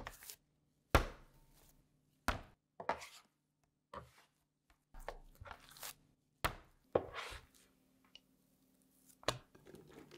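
Sourdough bread dough slapped down onto a wooden butcher-block counter during slap-and-fold kneading: a series of sharp slaps every second or two, the loudest about a second in and about six and a half seconds in.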